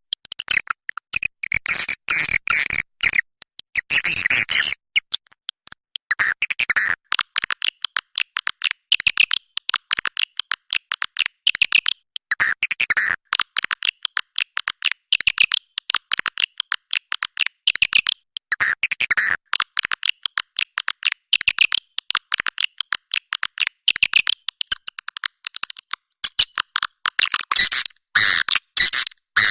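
Recorded swiftlet calls: a dense, unbroken twittering of rapid high chirps and clicks from many birds at once, as played in a swiftlet-house lure track.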